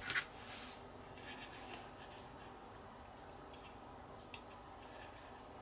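Faint clicks and light rustling of masking tape being picked and peeled off a painted plastic model body with tweezers. There are a couple of small clicks at the start, a brief rustle just after, then a few scattered faint ticks over quiet room tone.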